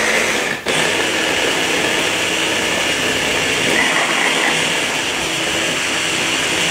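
Food processor motor running steadily, blending a thick avocado and egg-yolk mixture. It cuts out for a moment just over half a second in and starts again.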